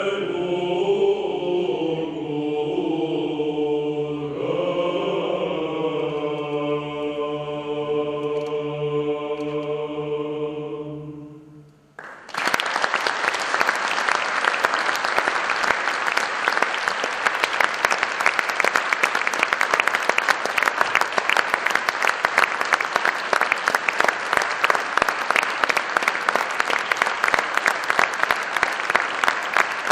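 Male choir singing Byzantine chant, several voices moving over a steady low held drone (the ison), ending on a held chord that dies away about eleven seconds in. An audience then breaks into steady applause that stops abruptly near the end.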